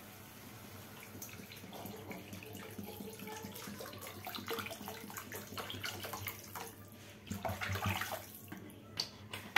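Water pouring from a plastic bottle into a pan of tomato rasam base, a faint steady pour. A few louder knocks come near the end.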